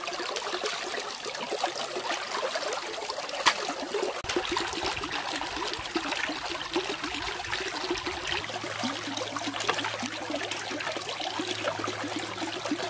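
Shallow, fast-flowing irrigation-channel water babbling and splashing around hands rinsing a whole chicken. There is a single click about three and a half seconds in.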